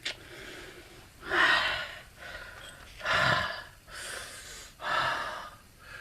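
A man breathing hard: a run of heavy, hissing breaths about one a second.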